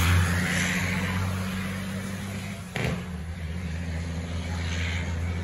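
Heavy truck's diesel engine running steadily, with a single sharp knock just under three seconds in.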